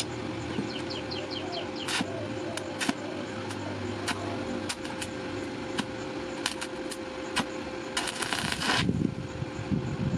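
Stick (arc) welding: the electrode crackles and sizzles with scattered sharp pops as it welds a bent steel hook onto a flat bar, with a burst of dense crackling a little after eight seconds. A steady hum runs underneath, and a bird chirps several times about a second in.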